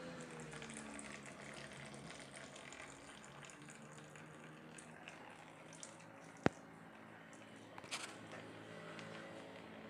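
Gear oil trickling in a thin, faint, steady stream from the drain hole of a Maruti Omni's rear differential housing. A single sharp click comes about six and a half seconds in.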